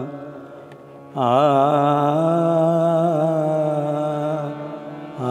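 Hindustani classical vocal alap: a man's voice holding and ornamenting long, wavering notes on an open 'aa', accompanied by a steady harmonium. The voice drops away for about a second near the start, then comes back with a new phrase.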